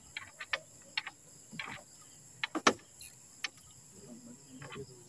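Scattered light clicks and knocks, one sharper about two and a half seconds in, as a fishing net and gear are handled in a small outrigger boat. Behind them runs a faint, steady, high-pitched chorus of night insects.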